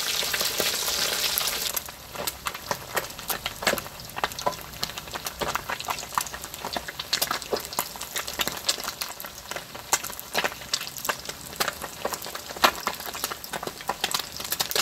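Whole salted silver barb deep-frying in hot oil in a steel wok. A dense, loud sizzle for about the first two seconds drops off sharply to a quieter sizzle broken by frequent sharp crackles and pops as the golden-brown fish fries on.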